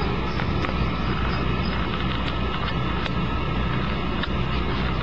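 Toilet running: a steady rush of water as the tank refills after a flush.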